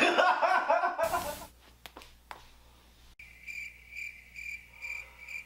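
Cricket chirping: a steady high chirp repeated evenly about two and a half times a second, starting abruptly about three seconds in. Before it, a man's voice trails off.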